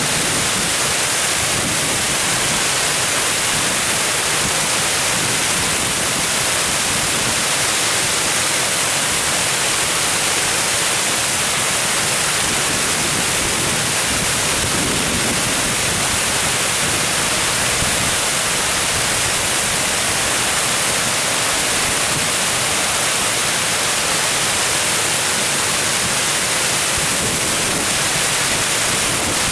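Water cascading over a weir: a loud, steady, hissing rush with no breaks.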